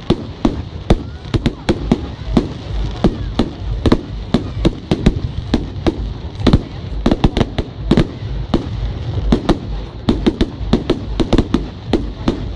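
Aerial fireworks bursting in quick, irregular succession, several sharp bangs and crackles a second over a continuous low rumble.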